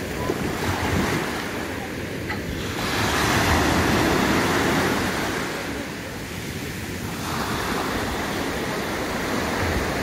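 Small sea waves breaking and washing up a sand-and-pebble shore. The surf swells loudest about three seconds in and again near the end.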